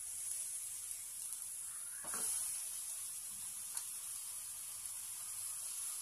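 Brinjal (eggplant) slices sizzling faintly in a hot, dry kadhai, a steady high hiss that swells about two seconds in as a second slice goes into the pan.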